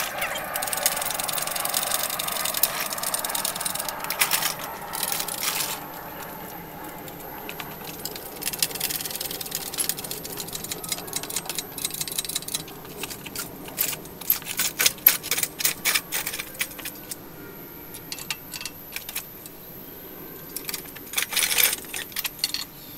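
Metal clinking and rattling from a shop engine hoist as the hoist is worked to lift a V8 engine out of a pickup bed. A noisy scraping stretch comes first, then a long run of sharp metallic clicks and rattles that come in clusters.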